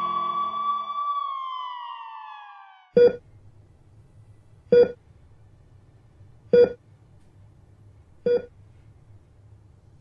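A siren wail holds its pitch, then falls and fades away over the first three seconds. Then a hospital patient monitor beeps steadily, one short beep about every 1.8 seconds, the regular beat of a heartbeat monitor.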